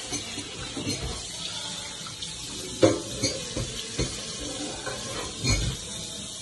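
Kitchen handling sounds: a few scattered soft knocks and clicks as lemon slices are picked off a plastic plate and laid on a ceramic serving dish, the loudest about three seconds in, over a steady faint hiss.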